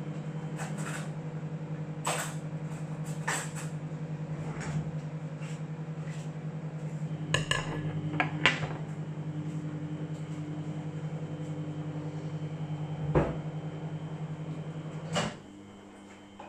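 Steady electric appliance hum that cuts off suddenly with a click near the end, with scattered clicks and knocks of kitchen things being handled.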